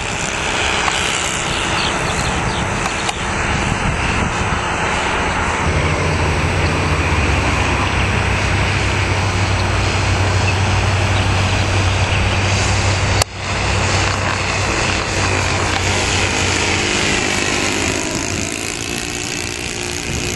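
Twin engines and propellers of a Top Flite C-47 radio-control model plane buzzing steadily in flight overhead, the pitch sliding down and back up near the end as it passes by.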